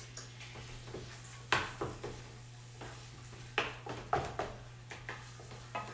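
Wooden spoon stirring browning ground beef in a frying pan: scraping, with several sharp knocks of the spoon against the pan, the loudest about a second and a half in. A steady low hum runs underneath.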